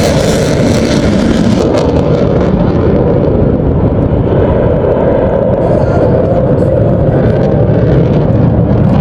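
Sukhoi Su-30MKI fighter jet's engines, a loud, steady deep rumble of jet noise as it flies its display. The high hiss dulls about two seconds in, leaving mostly the low rumble.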